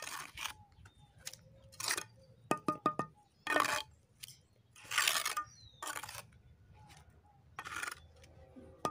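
Steel mason's trowel working cement mortar against a brick: a series of short rasping scrapes, with a quick run of ringing metallic taps about two and a half seconds in.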